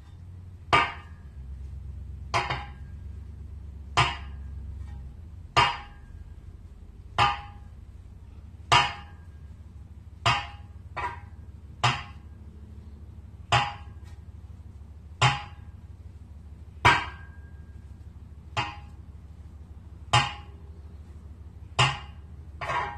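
Sharp metallic clicks, each with a short ring, about one every one and a half seconds, from a threaded-rod puller being wound by hand to draw a bearing into a Porsche 944 torque tube. A steady low hum runs underneath.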